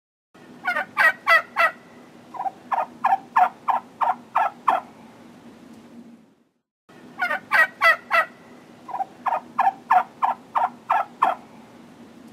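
Male turkey gobbling twice, each gobble a rapid rattling run of notes lasting about four seconds, over a steady low background hum.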